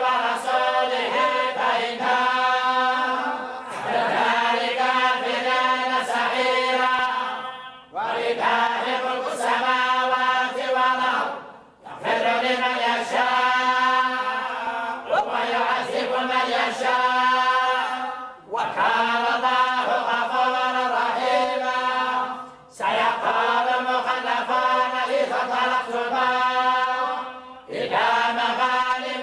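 A group of voices reciting the Quran together in unison, in the Moroccan collective chanting style, in phrases of several seconds with short breaks between them.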